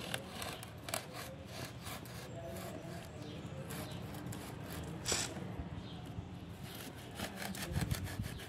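Kitchen knife sawing through the thick base of a peace lily leaf in a run of short rasping strokes, quickening near the end, with one sharp click about five seconds in.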